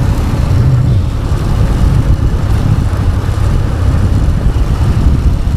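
Honda X-Blade's single-cylinder engine running while the motorcycle is ridden, heard under a loud, steady low rumble.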